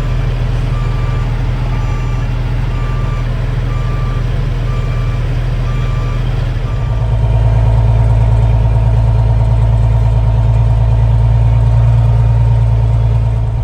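Semi truck's diesel engine idling steadily, with a backup alarm beeping about once a second. The beeping stops partway through, and about seven seconds in the engine gets louder and fuller.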